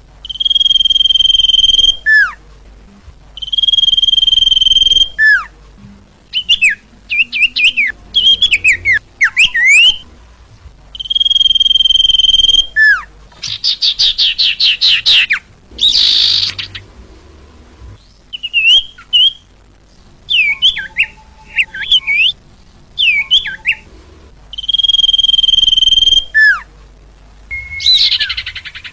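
Recorded song of a sirtu bird played as a lure call: long, steady, high whistled notes of about two seconds, given four times, alternating with quick chirping trills and short falling notes, with short pauses between phrases.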